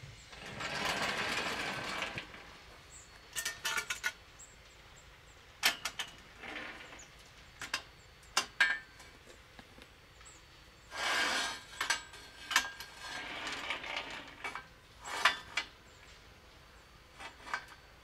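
Steel square tubing and angle iron being handled and set down on angle-iron rails: a few short scraping slides of metal on metal and scattered sharp clanks and clicks.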